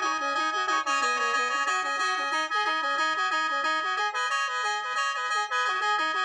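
Khaen, the Lao bamboo free-reed mouth organ, playing a quick melody of short notes over steady held drone notes.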